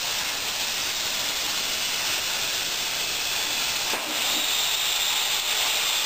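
Miller 375 Xtreme plasma cutter's arc hissing steadily as the CNC torch cuts thin aluminum sheet. About four seconds in there is a click and the hiss turns steadier, with a faint high whistle, as the arc goes out and air keeps blowing through the torch.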